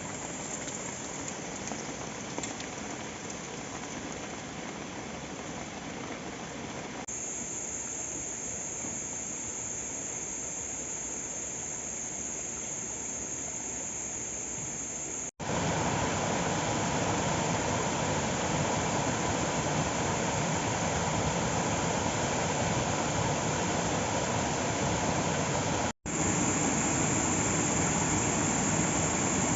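Waterfall water rushing in a steady wash of noise. It cuts out for an instant twice and is louder and fuller from about halfway on.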